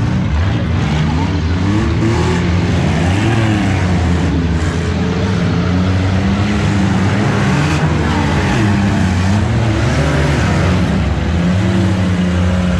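Several autocross derby cars racing on a dirt track, their engines revving up and falling back over and over as they accelerate and lift around the turns. Loud and continuous.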